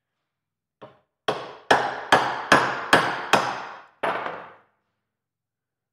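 A hammer striking a steel Jeep axle shaft's U-joint to drive its bearing cap into the yoke. A light tap, then about seven sharp blows at an even pace, each ringing briefly.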